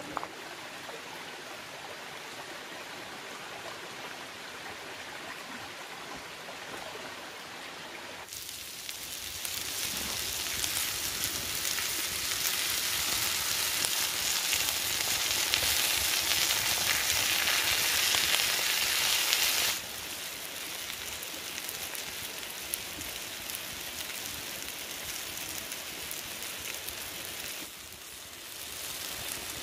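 Shrimp sizzling on a flat stone slab heated over a wood fire: a steady crackling hiss that grows much louder about eight seconds in and cuts off suddenly at about twenty seconds, with a softer steady hiss before and after.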